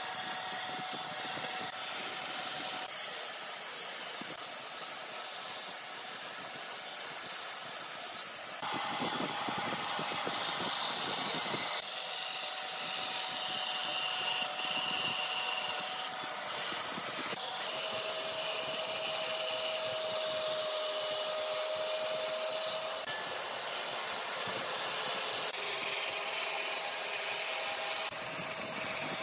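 Band saw cutting a softwood board along a curve: the motor and blade running steadily with the hiss of the blade through the wood. The sound shifts abruptly every few seconds.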